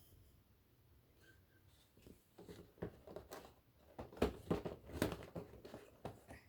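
Packaging being handled during an unboxing: crinkling and rustling with a quick run of sharp clicks and taps, starting about two seconds in.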